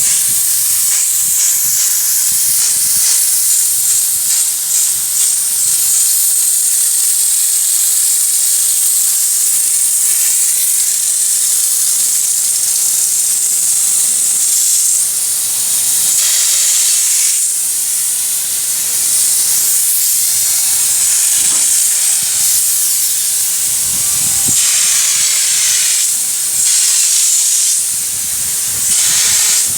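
Air-fed bedliner spray gun hissing steadily as it sprays textured liner. The gun passes air all the time, and the trigger meters how much liner goes through. The hiss breaks off briefly a few times.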